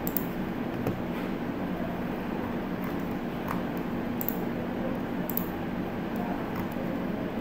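Steady low background hum of room noise, with a few faint clicks, among them a computer mouse click as a button is pressed.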